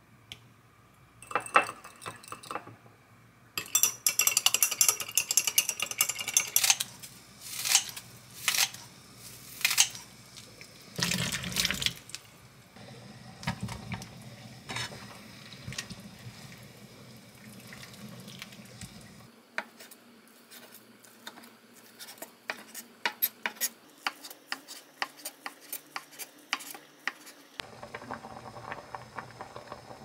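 Kitchen cooking sounds: utensils clinking and tapping against glass and dishes in quick runs, and a short pour of liquid about eleven seconds in. Near the end, tteokguk (rice-cake soup with dumplings) bubbles at a hard boil in the pan.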